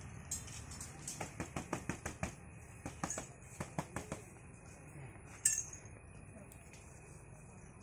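Light metallic clinking: a quick run of about fifteen clinks over the first four seconds, then one sharper, louder clink about five and a half seconds in.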